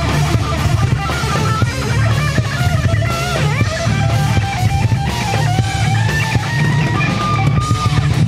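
A live rock band playing heavy, distorted music on electric guitars, bass and drums, with a high melody line that holds notes and bends in pitch.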